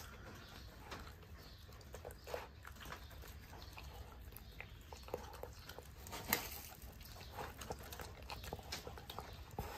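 A dog eating from a bowl of rice, dry kibble and shredded chicken breast: soft, irregular chewing and mouth clicks, with one sharper click about six seconds in.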